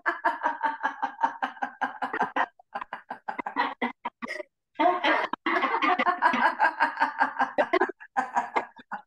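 Laughter-yoga laughing: deliberate laughter on cue, in rapid rhythmic 'ha-ha' pulses. It comes in several bouts, broken by short pauses about two and a half seconds in, around five seconds, and near the end.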